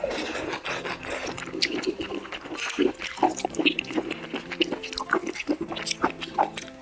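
Close-miked eating: wet chewing of saucy Kung Pao chicken and king oyster mushroom, with a metal spoon scraping and clinking in a glass bowl. Quiet background music plays under it.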